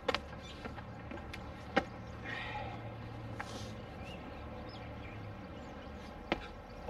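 Outdoor ambience: a low steady hum that dies away about five seconds in, with a few isolated sharp knocks, the loudest about two seconds in.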